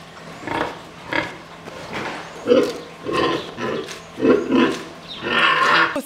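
Domestic pig grunting, a run of short grunts that come louder and closer together from about halfway through.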